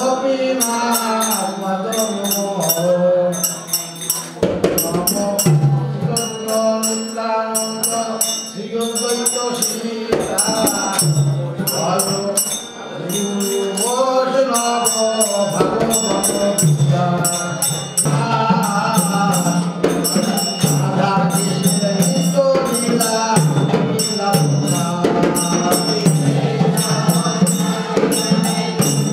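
Devotional singing with jingling hand percussion keeping a steady beat.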